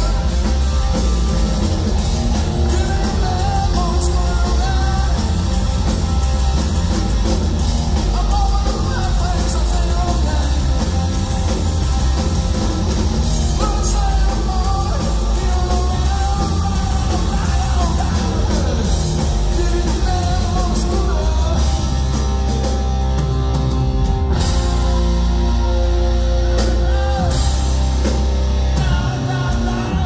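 Live hard-rock band playing loud: distorted electric guitar, bass guitar and drum kit, with a man singing over it.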